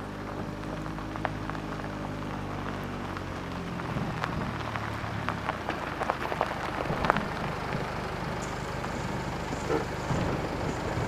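Steady rain falling, with scattered sharp drips and patters. A low droning hum runs under it for the first few seconds and then fades.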